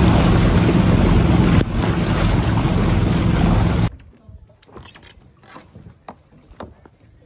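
Water rushing and splashing along the hull of a moving motorboat, with the boat's engine running underneath and wind on the microphone. About four seconds in it cuts off abruptly, leaving a much quieter background with a few faint knocks.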